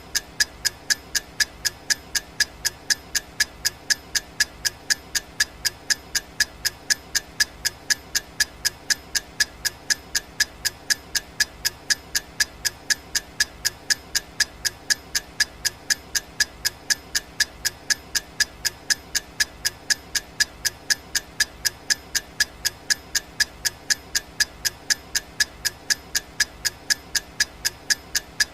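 Clock ticking sound effect: sharp, evenly spaced ticks a few times a second, keeping a steady, unchanging rhythm over a faint steady background.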